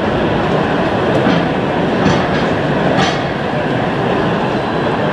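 Gauge 0 model train running on the track, a steady rolling rumble with a few sharp clicks.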